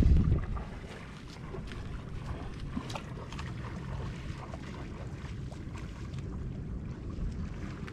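Wind buffeting the microphone, a strong gust in the first half-second, then settling into a steady outdoor wash with scattered faint clicks.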